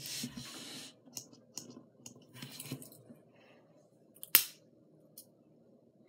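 Small scissors on a pocket multi-tool being opened and worked by hand: a brief rustle, a few light metal clicks, and one sharp click a little past four seconds in.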